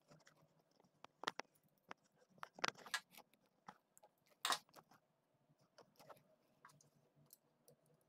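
Side cutters snipping the braided shield strands at the end of a coaxial cable, with fingers handling the cable. A scattered series of faint, sharp clicks and crunches, the loudest about four and a half seconds in.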